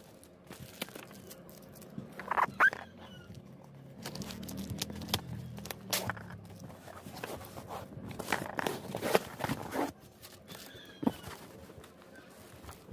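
A cardboard parcel wrapped in clear plastic being handled: irregular rustles, knocks and scrapes of hands on the plastic wrap and the box, the loudest about two and a half seconds in.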